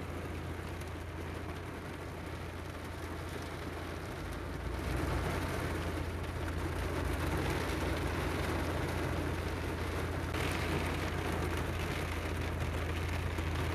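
Heavy thundershower rain and wind heard from indoors through window glass: a steady rushing noise over a constant low rumble, growing louder about five seconds in.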